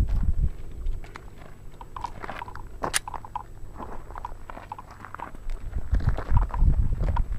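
Crunching and rustling handling noise with many small clicks and one sharp click about three seconds in, over a low wind rumble on the microphone.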